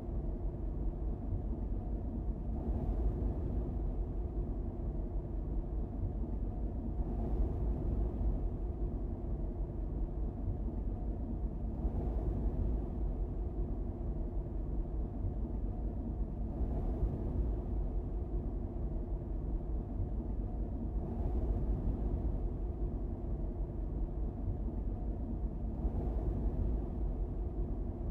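Steady low rumble of a car driving at road speed, tyre and engine noise, with a faint swell of hiss about every four to five seconds.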